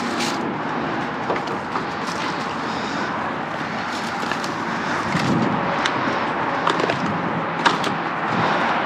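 Steady outdoor background noise with a few scattered light knocks and clicks.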